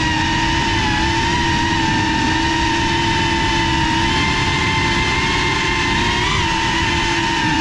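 Small FPV quadcopter's motors whining steadily at near-constant pitch with slight wavers and a brief rise about six seconds in, over a low rushing noise.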